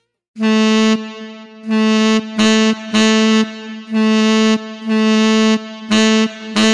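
Software saxophone from a sample-and-synthesis engine played from a keyboard: the same note repeated about a dozen times after a brief silence, some notes struck hard with a loud, bright attack and others played softly, showing key velocity shaping the attack of each note.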